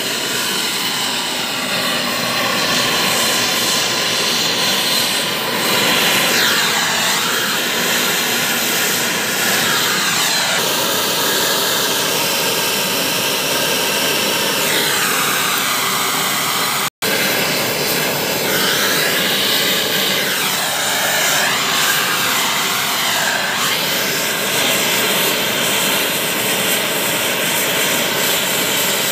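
Steady rushing hiss of a MAP gas hand torch flame heating a copper pipe joint for brazing, its tone sweeping slowly up and down now and then. The sound cuts out for an instant about 17 seconds in.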